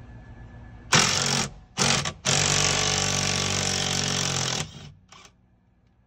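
Impact gun hammering a Loctite-secured 12 mm inverted 12-point steering-wheel bolt loose. It gives two short bursts, then one long burst of about two seconds, and a brief blip near the end.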